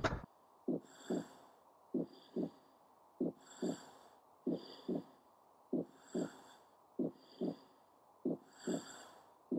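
Paired low thumps, like a heartbeat, repeating about every 1.3 seconds, each pair with a short breathy hiss over it. The pattern starts and stops abruptly.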